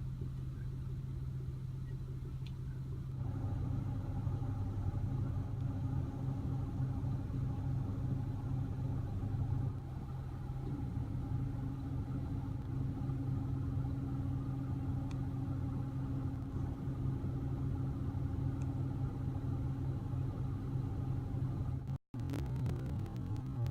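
Car engine idling with a steady low hum. A second, higher tone joins a few seconds in, and the sound cuts out for an instant near the end.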